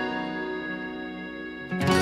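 Background music: plucked acoustic guitar-like instrumental, a strummed chord ringing and fading, with a new chord struck near the end.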